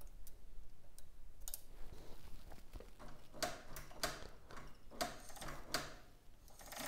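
Faint, light metallic clicks and ticks from hands working the mini bike's brake cable and clutch band brake, settling into a regular run of about three clicks a second for a few seconds in the middle.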